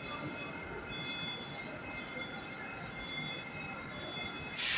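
Moscow Metro train standing at an underground platform, its on-board equipment giving a steady hum with faint high whines, and a short sharp hiss of air about four and a half seconds in.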